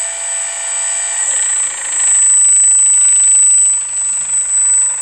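Electric drive motors and gearboxes of an RC Bobcat skid-steer loader whining as the machine spins around on the spot, louder for a couple of seconds in the middle. A steady high-pitched whine runs underneath.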